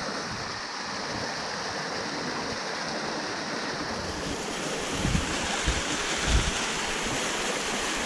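Steady rushing of a small rocky waterfall cascading down the cliff, with a few low thumps on the microphone about five to six and a half seconds in.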